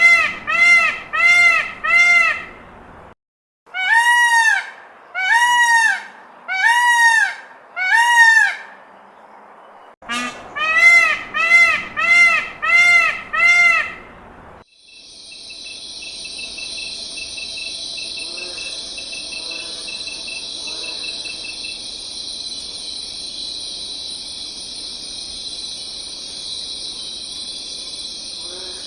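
An animal calling in loud, short calls that rise and fall in pitch, in runs of four or five about two-thirds of a second apart. About halfway through the calls stop and a steady, high-pitched buzzing drone takes over, with faint calls beneath it.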